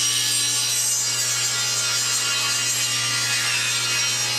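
Table saw ripping a stud-grade 2x4 lengthwise to width: a steady hiss of the blade cutting the wood over a low, even motor hum.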